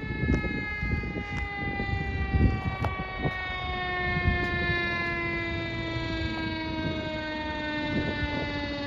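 Fire engine siren sounding one long wail that falls slowly and steadily in pitch. Low thumps and rumble sit underneath in the first few seconds.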